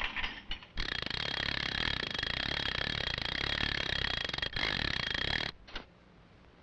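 Cartoon sound effect: a long rasping, fluttering noise lasting about five seconds that stops abruptly near the end.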